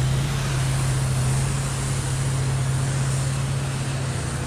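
Pressure washer running steadily, its engine giving a constant hum under the hiss of the water spray as the sidewalk is rinsed.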